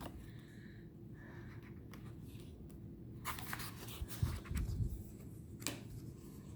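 Faint handling of tarot cards: a few soft clicks and rubbing sounds as cards are slid and turned over, with a couple of low thuds about four seconds in.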